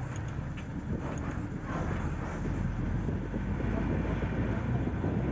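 Low rumble of a moving vehicle with wind buffeting the microphone, getting louder about two seconds in.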